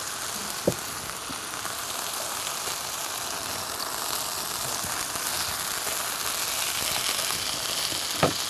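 Chicken sizzling on a hot electric griddle, a steady frying hiss, with two sharp knocks, one about a second in and one near the end.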